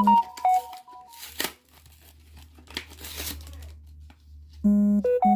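A short electronic jingle of stepped beeping notes, then a few bursts of crinkling and tearing of a foil booster-pack wrapper over a low hum. The jingle starts again near the end.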